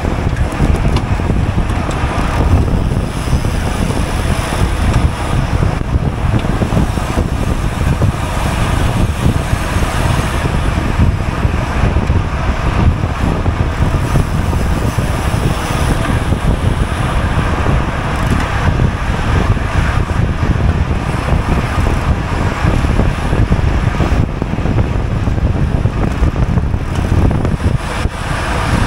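Steady wind rushing over a GoPro's microphone on a racing bicycle at speed, with road and tyre noise underneath.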